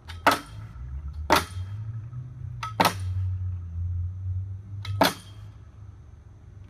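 Four sharp knocks, irregularly spaced over about five seconds, each with a faint click just before it, from a homemade pull-up bar (a metal pipe set in wooden posts) as a man swings through kipping pull-ups. A low steady rumble runs underneath.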